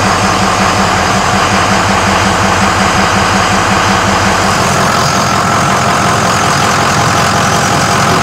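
Ford 6.0 Powerstroke V8 turbo-diesel idling steadily just after starting. Its deepest rumble lightens about halfway through.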